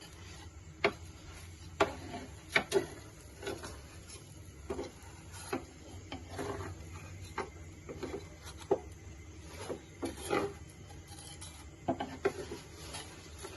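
A cooking utensil knocking and scraping against a frying pan in irregular short clicks and scrapes, over a low steady hum.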